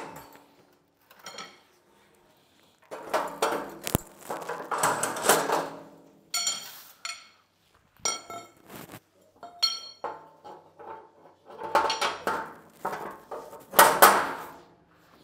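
Metal clanking and clinking as the legs and frame of a homemade welded steel table are handled and fitted together. There are short ringing clinks in the middle and a loud clank near the end.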